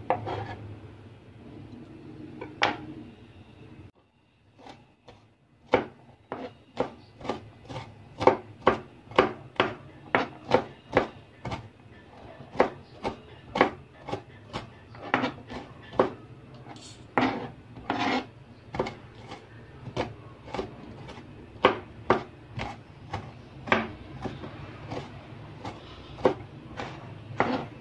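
Kitchen knife slicing garlic on a cutting board: a steady run of sharp knife-on-board chops, about two a second, starting a few seconds in.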